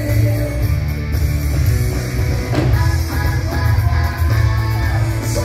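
Fireworks-show soundtrack music with a strong, continuous bass line.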